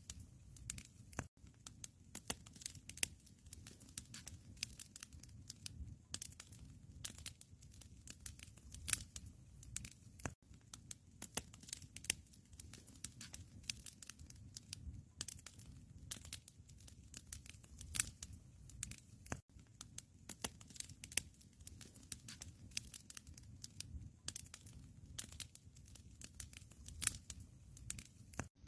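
Wood fire crackling in a fireplace: irregular snaps and pops over a low, steady rumble.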